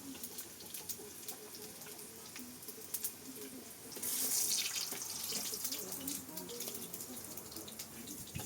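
Water running from a tap, starting suddenly about halfway through as a steady rush, after a few light clicks and knocks.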